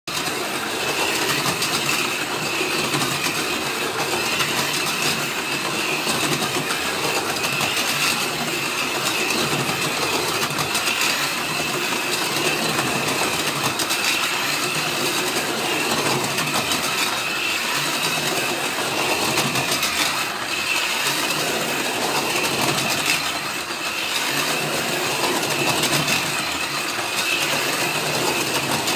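Micro Scalextric HO slot cars running on plastic track: small electric motors whining steadily, with a rattle of the cars in the slots.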